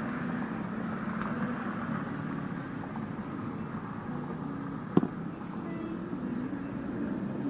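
Steady low hum of road traffic, with a single sharp knock about five seconds in.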